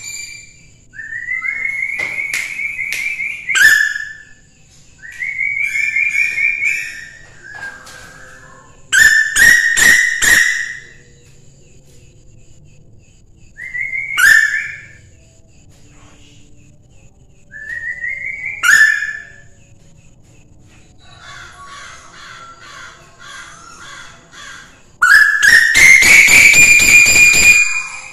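Female tuwu bird calling in its cage: short whistled phrases of quick rising notes, each ending in sharp clicking strokes, repeated every few seconds, with a longer and louder phrase near the end. These are calls used as a lure call (pancingan) to draw out or provoke other birds.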